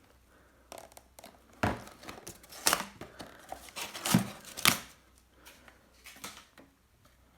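Packaging handled as a two-way car speaker kit is unpacked: crinkling and rustling, with four louder sharp rips or knocks between about a second and a half and four and a half seconds in.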